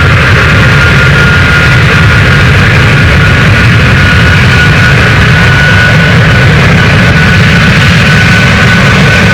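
Airbus A321neo jet engines running with a steady, loud rumble and a thin high whine that slowly rises in pitch.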